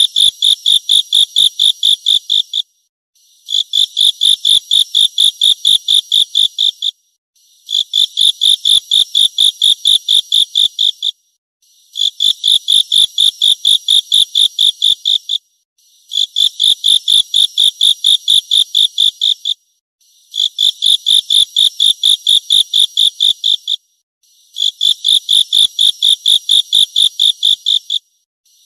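An insect stridulating, labelled as a grasshopper: loud, high-pitched trains of rapid pulses, each about three and a half seconds long, with a short pause between. The trains repeat very evenly, about seven in a row.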